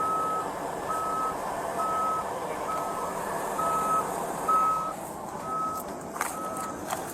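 A vehicle's reversing alarm beeping steadily, a single high tone repeating about once a second, over the noise of an idling engine. A sharp knock comes about six seconds in.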